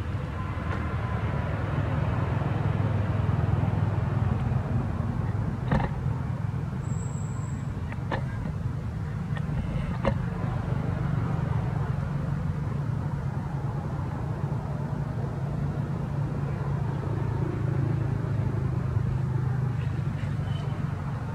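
Steady low rumble of a motor vehicle's engine running, with a few faint clicks.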